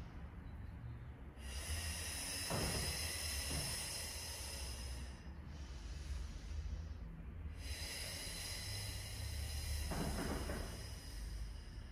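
A woman breathing audibly while performing a Pilates roll-up exercise: two long, breathy breaths, each lasting about four seconds.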